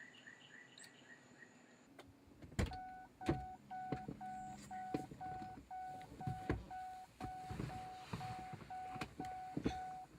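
A car's dashboard warning chime beeping steadily, about two beeps a second, over knocks and thumps of someone getting into the car. Before the chime starts there is faint outdoor chirping.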